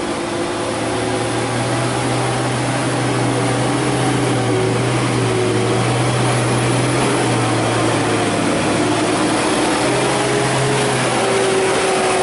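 Isuzu heavy truck's diesel engine working hard under load as the tractor-trailer climbs a steep hairpin bend: a steady, loud drone that wavers slightly in pitch and grows a little louder over the first couple of seconds.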